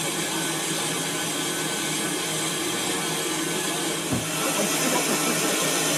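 Stationary Manning Wardle 0-6-0 saddle-tank steam locomotive hissing steam steadily. About four seconds in there is a dull low thump, and then the hiss grows slightly louder.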